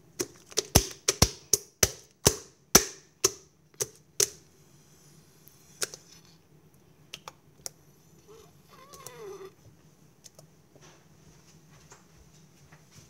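Hand slapping and patting a flat sheet of iceberg slime: about a dozen sharp, wet slaps in quick succession over the first four seconds, then a few scattered ones, and a short squelching squeak about nine seconds in.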